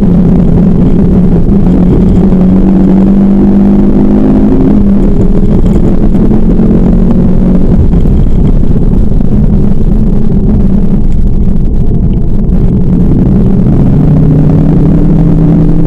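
Turbocharged 2.5-litre five-cylinder engine of a 2010 Ford Focus RS driven hard on track, heard loud from inside the cabin. The revs climb for the first few seconds, drop back about five seconds in, stay lower through the middle, and rise again near the end.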